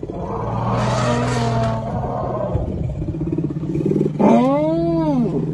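African elephants calling around a newborn calf: a low rumbling call in the first two seconds, then about four seconds in one call that rises and falls in pitch over about a second. A vehicle engine idles underneath from about four seconds in.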